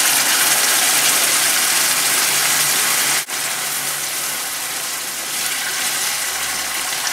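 Passata tipped into a hot frying pan of olive oil with garlic, olives, capers and anchovies, sizzling hard as it hits the oil. The sound drops out for an instant about three seconds in, then keeps sizzling a little quieter while the sauce is stirred with a wooden spatula.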